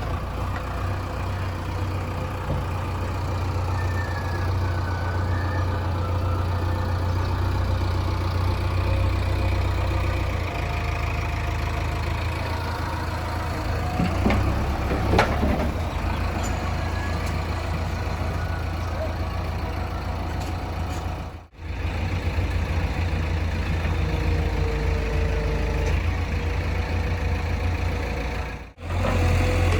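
Heavy diesel machinery running steadily under work, with a few sharp knocks about halfway through. The sound drops out briefly twice near the end.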